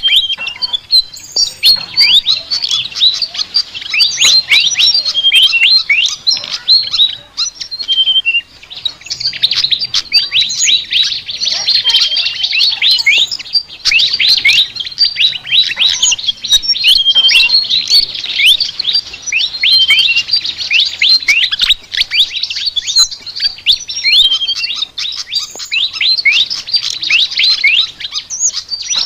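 A flycatcher (sikatan) singing a fast, chattering song of rapid high notes that sweep downward, with short lulls about a third and three quarters of the way through.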